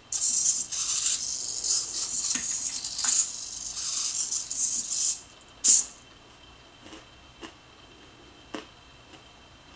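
Tower Pro SG90 micro servos of a hobby robot arm whirring and rattling in short choppy runs as the arm moves, for about five seconds; then one short louder burst and a few faint clicks.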